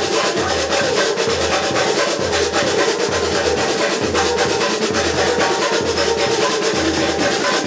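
Samba-style dance music with dense, fast drumming and a deep bass drum beat a little more than once a second.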